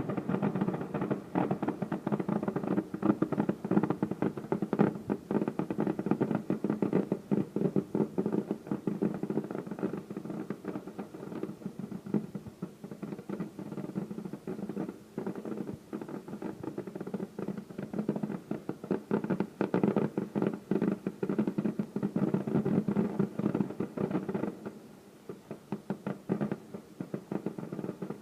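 Fireworks going off in a rapid, dense barrage of bangs and crackles, thinning to scattered pops about three seconds before the end.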